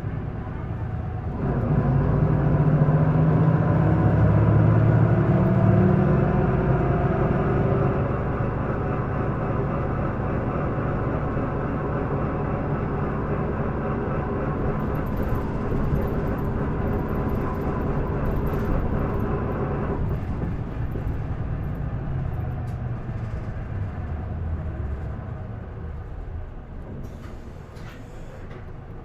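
Isuzu Erga city bus's six-cylinder diesel heard from inside the cabin, revving hard as the bus pulls away about a second and a half in, its pitch rising for several seconds. It then runs steadily at cruising speed and eases off about two-thirds of the way through as the bus slows.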